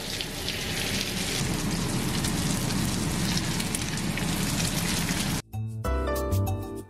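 Eggplant and egg frying in hot oil in a non-stick pan, sizzling and crackling steadily as beaten egg is poured over. About five seconds in the sizzle cuts off and background music with a steady beat takes over.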